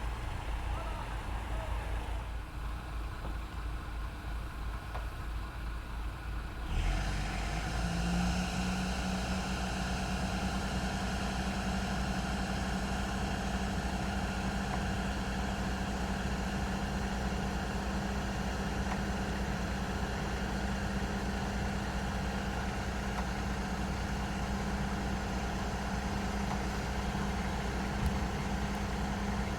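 Heavy diesel machinery engine running at low speed, then about seven seconds in it speeds up and holds a steady, higher note.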